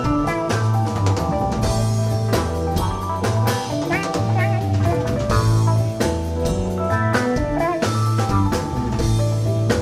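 Live prog rock band playing an instrumental passage: electric guitar over a steady bass line and drum kit, with a lead line bending in pitch about four seconds in.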